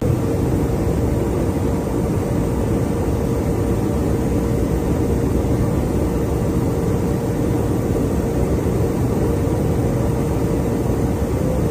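Steady loud roar of an air-refueling tanker in flight, engine and airflow noise heard from inside the aircraft, with a steady mid-pitched hum running through it.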